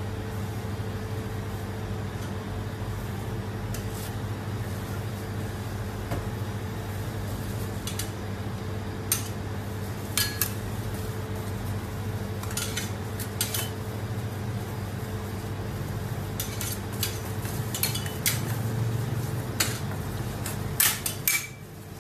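Steady low hum of a rolled-ice-cream cold plate's refrigeration unit, with scattered sharp metal clicks and clinks of utensils on the steel counter, bunched together near the end.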